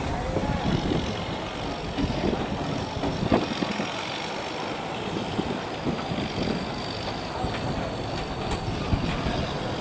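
Boat engines running steadily, a rough, even mechanical noise with a gusty low rumble underneath and a few brief knocks.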